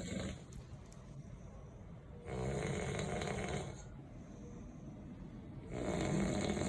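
A man snoring loudly, one long snore about every three and a half seconds. One trails off at the start, a full snore comes about two seconds in, and another begins near the end.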